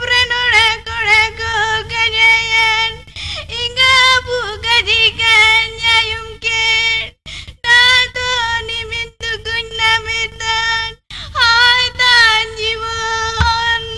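A woman singing in a high voice, holding long steady notes, with short breaks between phrases.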